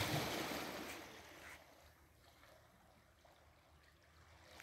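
Caspian Sea waves washing against the shore: a surge of rushing water right at the start that fades away over about a second and a half, leaving only a faint wash.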